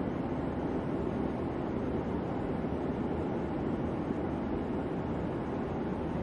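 Steady, even rumbling roar of a distant jet airliner's engines in flight.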